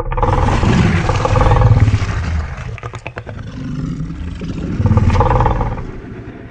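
Custom-made creature roar sound effect for the Distortus Rex dinosaur. Two long, deep roars with a quick rattle of clicks between them; the second roar fades away near the end.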